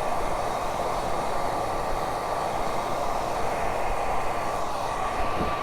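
Handheld hair dryer running steadily, a constant whirring rush with a faint steady whine.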